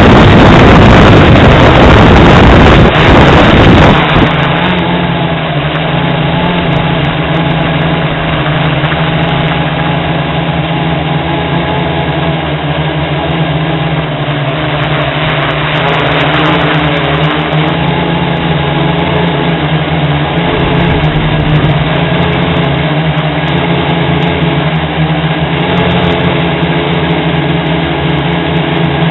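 Multirotor hexacopter's electric motors and propellers droning steadily, heard from its onboard camera: several close pitches hum together and waver slightly as the motor speeds shift. Heavy wind buffets the microphone for the first few seconds.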